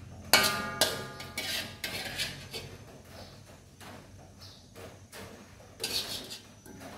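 A metal spoon scraping and knocking around inside a steel wok: a loud ringing clang near the start, then a run of scrapes and clinks, with a few more near the end.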